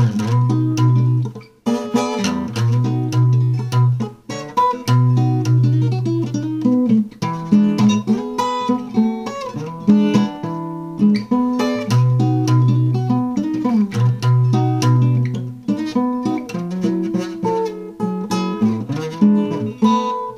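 Acoustic guitar playing an instrumental blues passage: picked notes over recurring low bass notes, with no singing.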